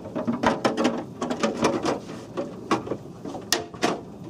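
Cover of a Hillman 4100 key machine being set back on top of the machine: a quick run of clattering knocks, then a few separate sharp clicks towards the end.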